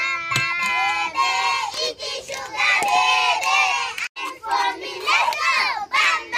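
Several children's voices shouting and singing together at once, high-pitched and lively, with a brief break a little over four seconds in.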